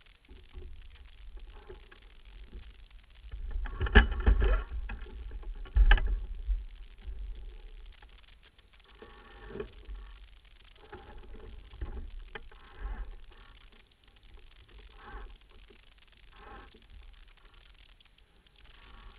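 Wind buffeting the microphone of a sailboat running under spinnaker, with water rushing along the hull; two loud gusts come about four and six seconds in, then quieter, uneven surges.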